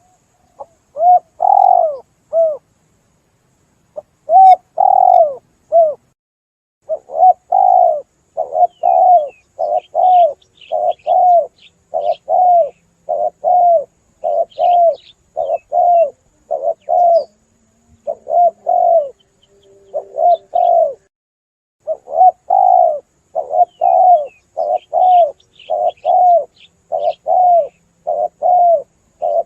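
Spotted dove (tekukur) cooing over and over, a run of short coos about one a second with a few brief pauses: a lure call used to draw doves in. Faint high chirps of other birds sound in the background now and then.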